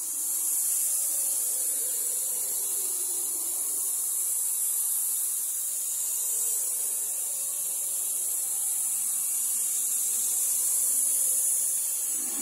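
Horror sound effect: a steady, high hiss like static that swells in at the start and holds unchanged, with a faint low drone beneath it.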